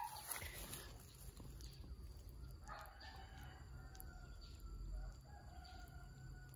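A rooster crowing faintly: one long call that starts about three seconds in and lasts almost to the end.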